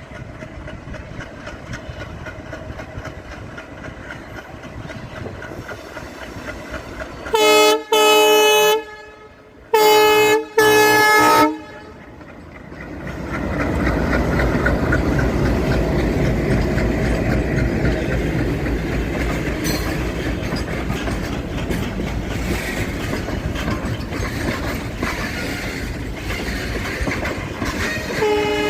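Indian diesel locomotive sounding its multi-tone horn in two pairs of loud blasts, a short then a longer one each time. About two seconds later the loud, steady noise of the train running close by takes over, and the horn starts again right at the end.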